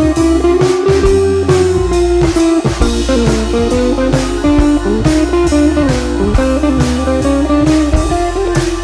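Background music: a guitar-led tune over bass and a steady drum beat.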